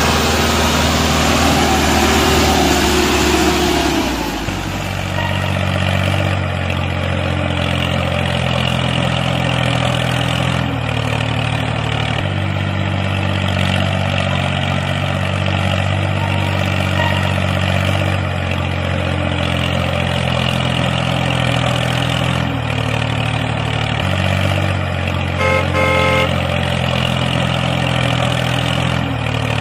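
Tractor engine running steadily, noisier for the first few seconds and then settling into an even, low running sound. A few short high beeps come about three-quarters of the way through.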